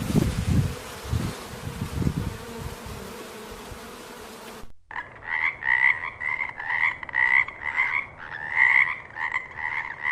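A steady hiss with low thumps, then after a sudden cut an animal calling in fast, repeated pulsed notes.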